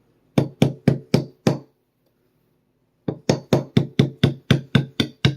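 Gunsmith hammer lightly tapping a 5/64 pin punch to drive the ejector roll pin out of a Sig Sauer P365 slide. Five even taps, a pause of about a second and a half, then a run of about ten more, about four a second.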